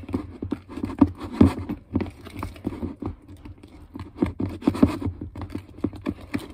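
Irregular knocks and bangs from chicken being chopped and mashed, mixed with the sticky squishing and scraping of slime being stirred by hand in a plastic bowl.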